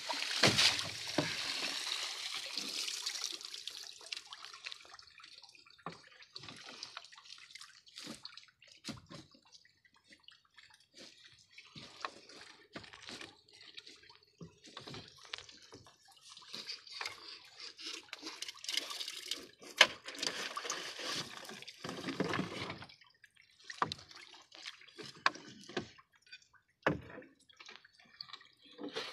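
Seawater streaming and dripping off collapsible net fish traps as they are lifted out of the sea into an outrigger boat, loudest in the first few seconds. Then scattered drips, small splashes and light knocks of the trap frames and netting being handled and stacked.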